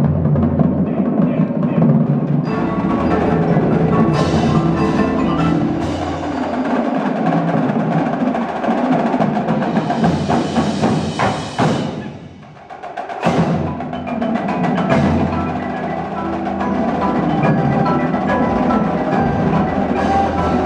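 Indoor percussion ensemble performing, with mallet keyboards and drums playing together; the sound drops away briefly about twelve seconds in, then the playing resumes.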